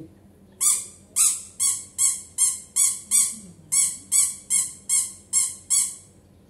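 A squeaky dog toy squeezed over and over in a hand: about fourteen short, high squeaks at two to three a second, starting about half a second in.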